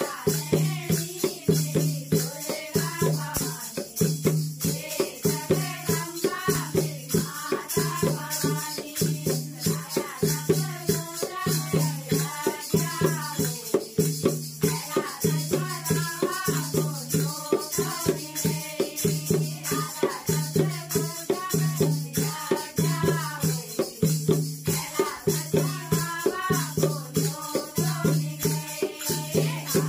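Women singing a Hindu devotional bhajan together to a steady beat, with a dholak drum, the metal jingling of a chimta and small hand cymbals, and hand clapping.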